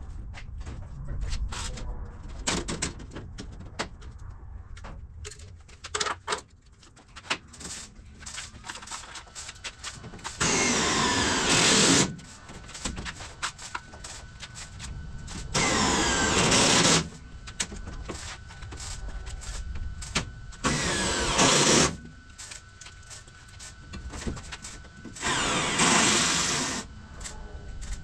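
Cordless drill driving screws into a camper's aluminium edge trim: four short runs of the motor, each about a second and a half, its pitch rising as it spins up and stopping abruptly. Light clicks and handling knocks fall between the runs.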